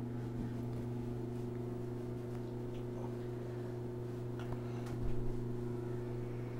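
A steady low electrical hum, with a few faint knocks and rustles about four and a half and five seconds in.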